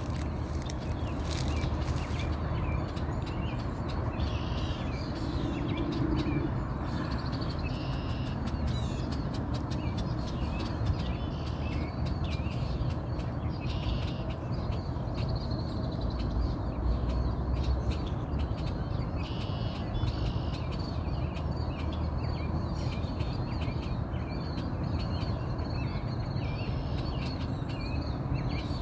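Swans preening, their bills making frequent small clicks as they work through their feathers, over a steady low rumble, with other birds calling briefly now and then throughout.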